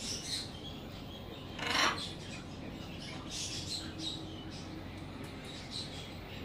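Blue-and-gold macaw making soft, high squeaky chatter, with one brief, louder rough call about two seconds in.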